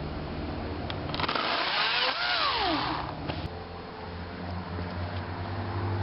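Battery-powered EGO chainsaw run briefly: its whine climbs as the trigger is pulled, then falls steeply as the chain spins down after release.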